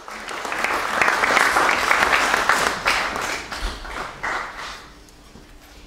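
Audience applauding, swelling quickly at the start, loudest over the first three seconds, then thinning out and dying away about five seconds in.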